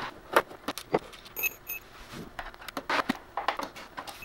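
Screwdriver and hands working on the plastic casing of a laser printer during disassembly: a run of irregular clicks and small knocks, with two brief high tones about a second and a half in.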